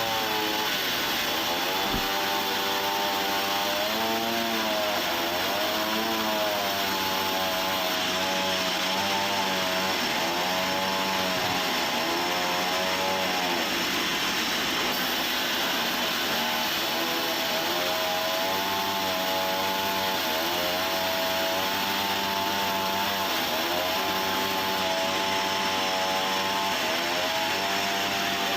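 Sawmill saw running continuously through wood, its motor's pitch dipping and recovering every couple of seconds as the cut loads it, under a steady hiss of cutting.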